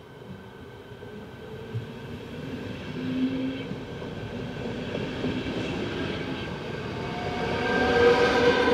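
ČD class 471 CityElefant double-deck electric multiple unit approaching and passing close by, its rail and running noise growing steadily louder. A whine of several tones grows louder near the end.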